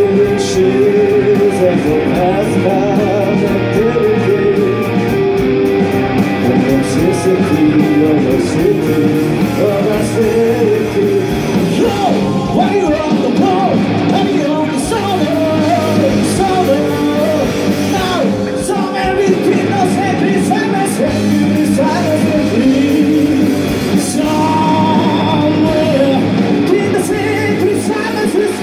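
Live rock band playing a song: a male singer sings over electric guitars, bass guitar and drums.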